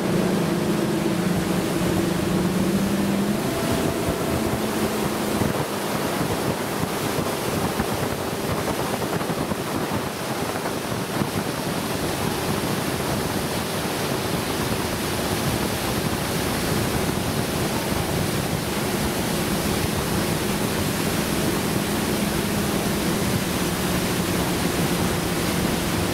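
Steady rush of wind on the microphone and water hissing past a motorboat under way, with a faint steady boat-motor hum underneath that fades a few seconds in and returns in the second half.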